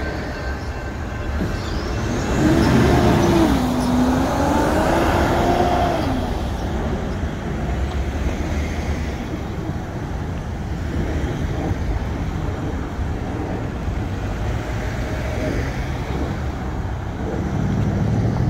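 Road traffic driving past: cars and pickup trucks crossing the tracks. One vehicle passes louder about two seconds in, its engine note rising and falling in pitch.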